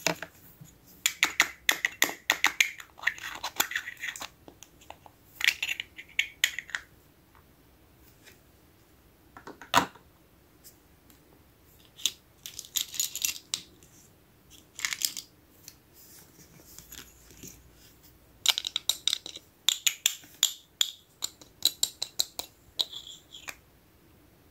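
Small hard plastic toy kitchenware, a miniature pot with its lid, clicking, tapping and rattling as it is handled and set down, in several bursts of quick light clicks with one sharper single click about ten seconds in.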